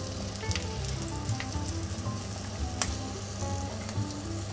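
Salmon pieces sizzling in olive oil and garlic in a nonstick frying pan, a steady crackle with a few sharp pops. Light background music with a simple melody plays alongside.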